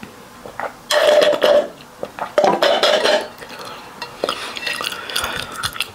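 Drinking through a straw from a stainless-steel cup: two loud sucking slurps, about a second in and again about two and a half seconds in, each under a second long, followed by lighter sucking and small clicks.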